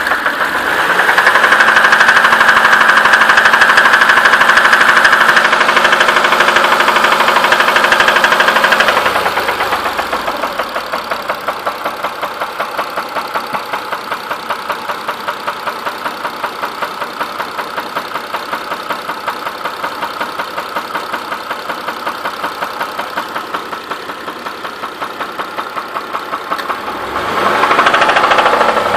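Mitsubishi 6B31 3.0-litre V6 engine running with a knock, held at a steady raised speed for about nine seconds, then dropping back to a lower speed with a rhythmic pulsing, and revving up again near the end.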